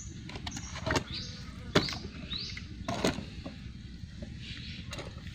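Sharp plastic clicks and knocks from the lid of an RC bait-dropping fishing boat being shut and handled, about four in all, with a few faint high chirps in the background.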